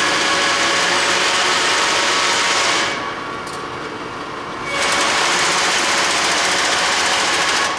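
YCM-SuperMax milling machine's table rapid traverse engaged twice. Each time it makes a loud, steady mechanical whir for about three seconds over the quieter sound of the running machine, then drops back.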